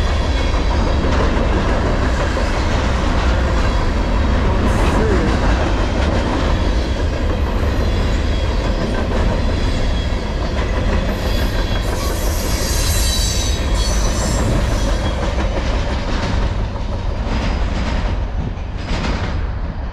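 Freight cars loaded with empty garbage containers rolling past close by, steel wheels running steadily on the rails. A high-pitched wheel squeal rises over the rolling noise for a few seconds around the middle, and the sound drops off slightly near the end as the last cars pull away.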